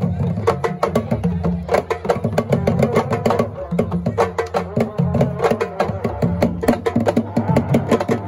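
Traditional Senegalese sabar drums playing fast, dense rhythms, with strikes coming several times a second without a pause.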